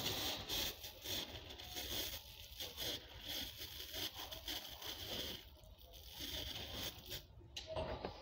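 Termiticide spraying from a hose-fed lance onto bare soil, a steady hiss broken now and then.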